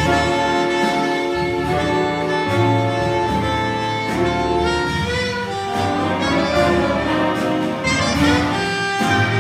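Jazz band playing, saxophones and brass holding sustained chords that change every second or so over a bass line.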